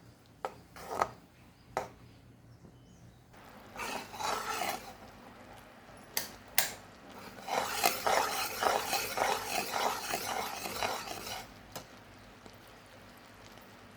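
A spoon stirring and scraping round a pan of jaggery and water being cooked down to syrup, with a few sharp clinks of the spoon against the pan. The longest stretch of scraping comes in the second half.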